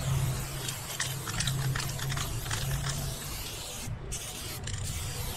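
Aerosol spray paint can hissing as paint is sprayed in strokes, with a brief stop about four seconds in and another soon after. A low steady hum lies underneath for the first three seconds.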